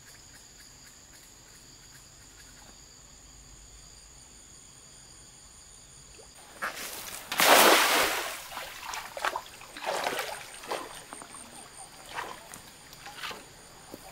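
Steady high insect chirring. About seven seconds in, a cast net lands on the pond with a loud splash as its weighted rim hits the water. A few smaller splashes and sloshes follow over the next several seconds.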